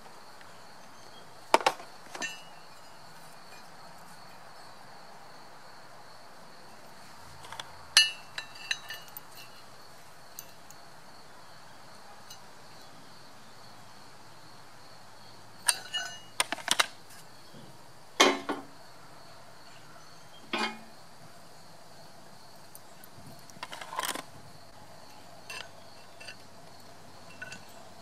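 Scattered sharp metal clinks and knocks as a steel angle bracket and a hammer-drill bit are handled and set against a concrete block, in small clusters a few seconds apart. A faint steady high insect trill runs underneath.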